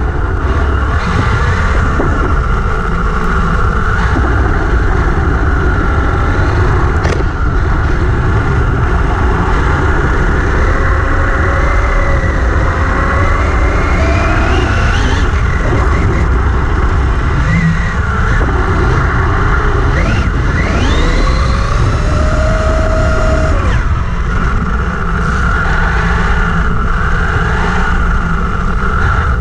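Vaterra Twin Hammers RC buggy with a brushless motor driving on paddle tyres through sand, heard from on board: a constant low rumble under the electric motor's whine, which rises and falls with the throttle and climbs sharply twice around the middle.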